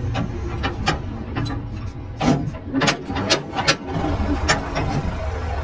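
Workshop sounds: about a dozen sharp, irregular metal knocks and clanks, bunched in the middle, over a steady low machine hum.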